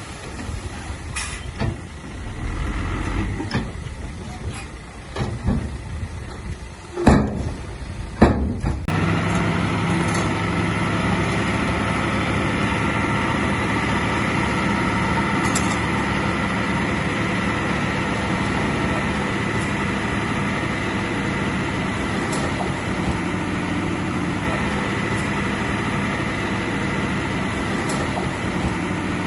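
Heavy diesel earthmoving machinery running, with several sharp knocks in the first seconds. From about nine seconds in the engine runs steadily.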